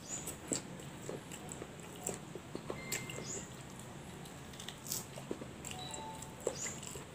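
A person chewing and biting pork adobo eaten with the fingers: many small, irregular smacks, clicks and crunches.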